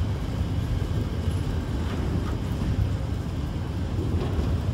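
Freight train of high-sided box wagons rolling past at speed: a steady, even rumble of wheels on rail, with a few faint clicks.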